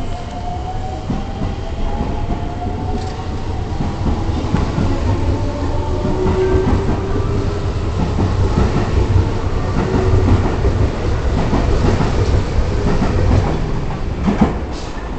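JR West 223 series electric train running, its motor whine rising steadily in pitch over the first ten seconds or so as it picks up speed, over a steady rumble and the clatter of wheels over rail joints.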